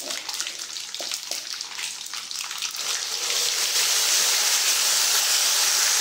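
Hot sesame oil in an iron kadai crackling with popping mustard seeds, then about three seconds in a louder, steady sizzle as wet ground mint paste is added to the oil.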